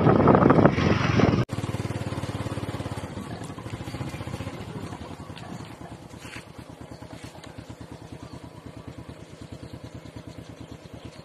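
Motorbike riding along with a loud rush of engine and wind noise, which cuts off abruptly about a second and a half in. After the cut comes a small motorbike engine running slowly, with a steady, rapid, even pulse.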